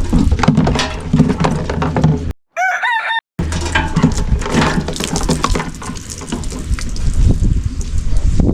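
A rooster crows once, a call of about a second that rises and falls in pitch, with the steady background noise and low hum dropping out completely around it.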